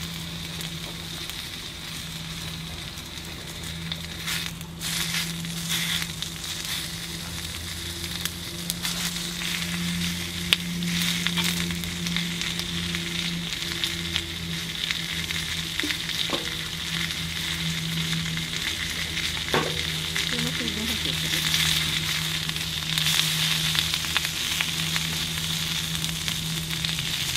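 Pork belly, garlic and garlic shoots sizzling and crackling on a Nanbu cast-iron griddle pan, with occasional clicks and scrapes as the food is turned. A steady low hum runs underneath.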